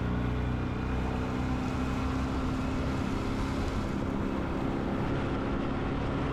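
A boat motor running steadily under way: an even drone with a steady rushing hiss over it.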